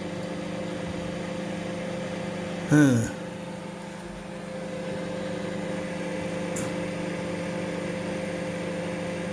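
George microwave oven running on its heating cycle: a steady electrical hum. A short vocal sound breaks in about three seconds in.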